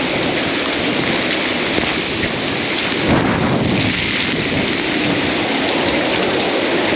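Hurricane-force wind, around 58 knots, and heavy rain, the wind buffeting the microphone. A stronger gust swells about three seconds in.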